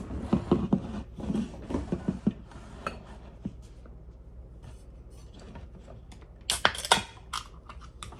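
Kitchenware being handled: a string of light knocks and clinks in the first half, then a louder cluster of sharp clicks about six and a half seconds in.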